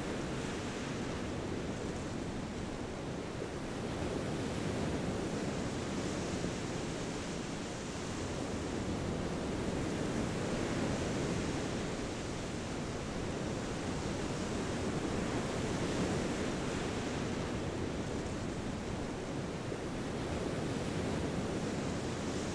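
Ocean surf washing onto a beach: a steady rush of water noise that swells and eases every few seconds as waves come in.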